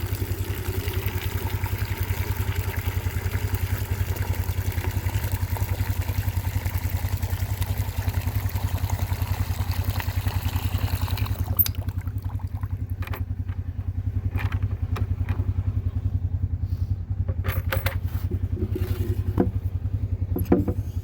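Skid loader engine running steadily, a low, even pulsing hum. About halfway through, a hiss above it cuts off, leaving the engine with a few light clanks and clicks.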